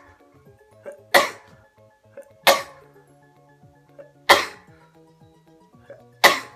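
A young man sneezing on purpose in a rapid series: four sharp sneezes about one and a half to two seconds apart, each with a short intake of breath just before it. Background music plays underneath.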